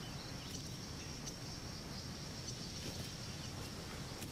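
Quiet outdoor ambience with a steady, faint high-pitched insect trill, like crickets, over a low background hiss.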